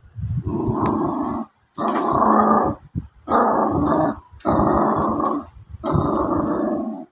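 Jack Russell terrier puppy growling angrily in five bouts of about a second each, with short pauses between.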